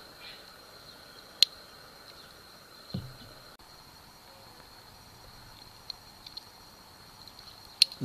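Quiet handling of Swiss Army knives on a wooden table: a sharp click about a second and a half in, a soft thump about three seconds in, and a few light clicks near the end, over a faint steady hiss with a thin high whine.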